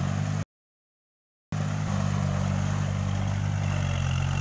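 Kubota compact diesel tractor engine running steadily under load as it pulls a rotary tiller through paddy mud. The sound cuts out completely for about a second near the start, then comes back unchanged.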